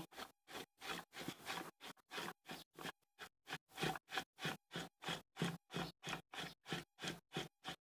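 Knife scraping the soaked tripe's inner lining in quick, faint repeated strokes, about four a second. The lining, softened by hours in salt and flour, is coming away easily.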